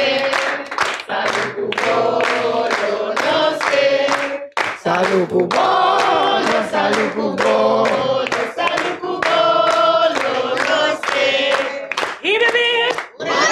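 A group of people singing a song together, with hands clapping along.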